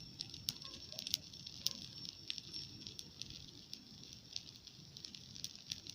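Large bonfire crackling, with irregular sharp pops and snaps over a steady hiss and low rush of burning.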